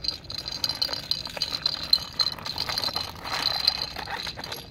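Plastic toy unicorn carriage rattling and clinking as it runs along the floor, with a steady high ringing jingle over many small clicks; the sound stops at the end.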